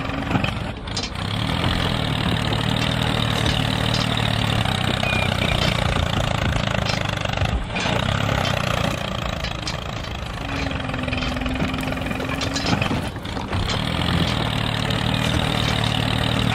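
Tractor engine running steadily with a low, even beat, dipping briefly about a second in, near eight seconds and near thirteen seconds. A steady low hum rides over it for about two seconds past the ten-second mark.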